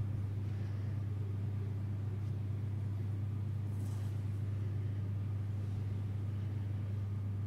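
Steady low hum with a weaker overtone, unchanging in level throughout. A faint brief swish comes about four seconds in.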